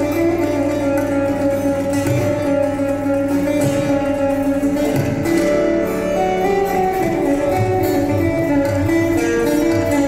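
Background music: Indian classical instrumental on Mohan veena, a plucked Indian slide guitar, playing held notes over a steady drone.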